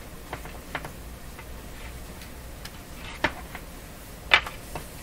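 Irregular light clicks and taps from handling a vintage radio's power cord and plug, about eight in all. The sharpest come about three and four seconds in.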